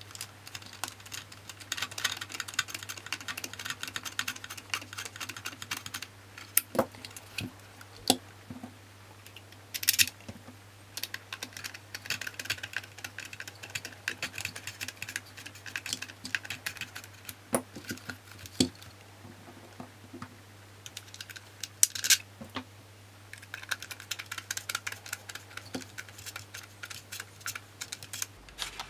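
Precision screwdriver driving Torx T8 screws into the plastic cyclone assembly of a Dyson V10. Spells of rapid fine clicking come as the screwdriver is turned, broken by a few sharper single clicks, over a faint steady hum.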